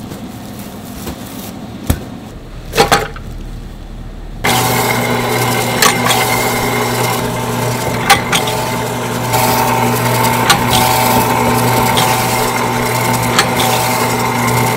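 Electric deli meat slicer starting about four and a half seconds in, its motor humming steadily while the circular blade cuts thin slices from a block of pressed pig-head meat, with a light click every couple of seconds. Before it starts, a few knocks from handling.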